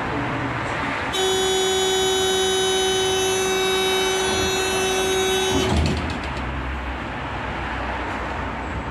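Tatra T5C5 tram's door-closing warning buzzer, sounding one steady high tone for about four and a half seconds from about a second in. As it stops there is a low thump as the doors shut, over the tram's steady running hum.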